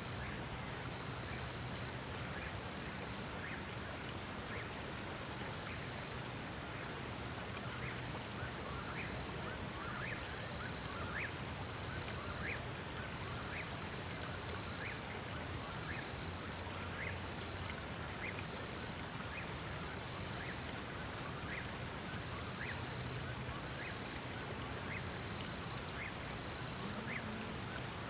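Wildlife chorus by a creek: a high trill repeating in on-and-off bursts of about a second, with short chirping animal calls scattered through, over a steady hiss.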